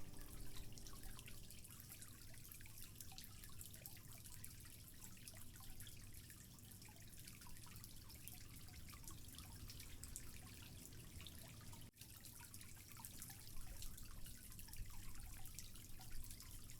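Small tabletop waterfall, pump-fed, trickling and dripping over stones into a bowl: faint, with many quick little drips over a steady low hum. The sound cuts out briefly about twelve seconds in.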